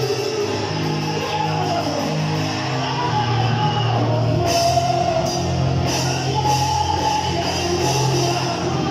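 Worship music played by a band: guitar and drums, with long held low notes and a melody line above them. A run of cymbal hits comes in about halfway through.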